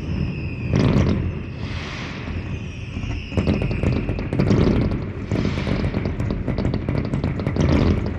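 Fireworks display: repeated deep booms and dense crackling, with a high whistling tone sliding slowly down in pitch through the first few seconds.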